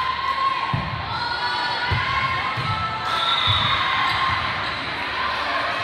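Volleyball being played in a gymnasium: a dull thud of the ball about every second during a serve and rally, over a steady murmur of players' and spectators' voices.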